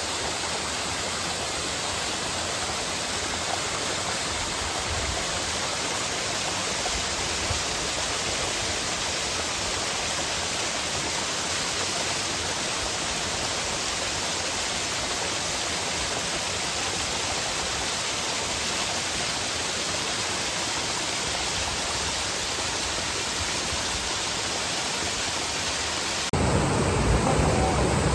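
Mountain valley stream rushing over rocks, a steady even rush of water. About two seconds before the end it turns louder and deeper.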